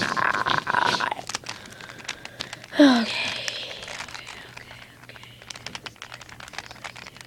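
Rubik's Cube layers being turned by hand, a run of quick, irregular plastic clicks and rattles.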